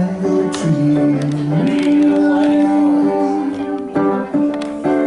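A singer performing live with acoustic guitar accompaniment, holding long sung notes over strummed chords.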